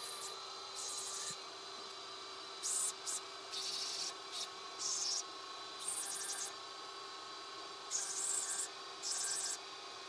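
Opal ground wet on a spinning #170 sintered metal-bond diamond grinding wheel. A steady motor hum is broken by short hissing scrapes, each under a second, every second or so as the stone is pressed to the wheel.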